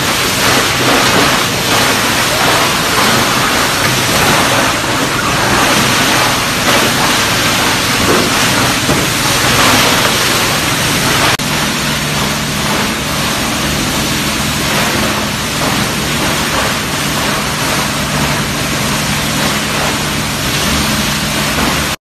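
Plastic crusher machine shredding washing-machine shells, a loud, dense crackling din of plastic being broken up. About eleven seconds in it turns to a steadier machine drone with a low hum.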